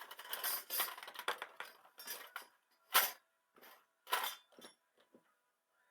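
Small metal parts clinking and scraping as a pocket knife and tools are handled: a dense run of scrapes and clicks for about the first two seconds, then several separate clinks, the sharpest about three seconds in.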